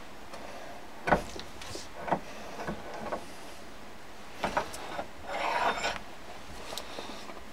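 Light metal clinks and knocks as a keyway broach and shims are handled and seated in a gear bore on an arbor press, with a short scraping rustle a little past halfway.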